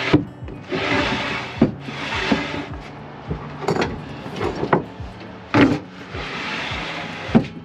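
Plywood lids scraping as they slide over a wooden frame, in three spells, with several sharp wooden knocks as pieces are dropped into place and set down.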